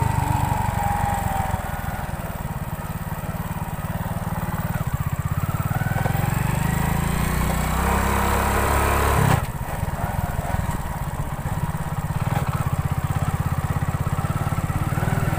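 Honda motorcycle engine running under way, climbing in pitch from about five seconds in and dropping suddenly just after nine seconds, then running on steadily.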